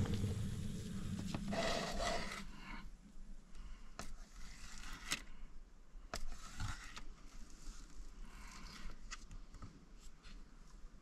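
A knife cutting through a thick ham steak on a plate, with scattered short clicks and scrapes as the blade meets the plate. In the first two seconds or so a small canister gas stove hisses under a pot boiling hard, then stops.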